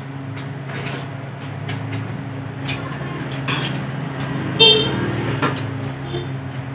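A steady low hum runs throughout, with a few light clicks of eating at a table: mussel shells and cutlery against plates. A brief high tone sounds about four and a half seconds in.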